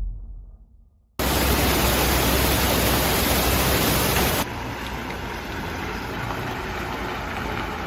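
A deep boom dies away to near silence. Then a loud, steady rushing noise starts abruptly and, about four and a half seconds in, switches suddenly to a quieter rushing noise with a low hum beneath it.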